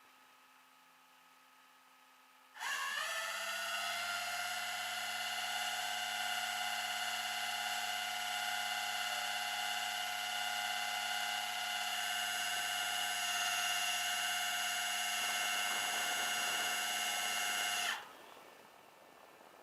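A small electric motor whining at a steady pitch, starting suddenly with a brief rise and cutting off after about fifteen seconds.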